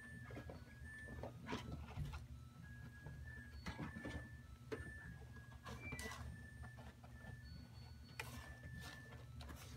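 Kittens scratching and pawing through granular cat litter in a plastic litter box: irregular short scratchy rustles and scrapes over a steady low hum.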